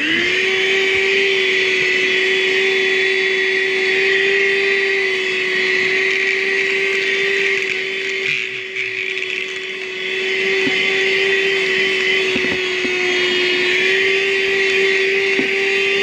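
ArmorAll 12-volt handheld car vacuum with its crevice tool switched on, its motor spinning up at once to a steady high whine with a rushing hiss of suction, powered from the cigarette lighter with the car's engine off. The level dips for a couple of seconds about eight seconds in, and a few faint ticks come through near the middle.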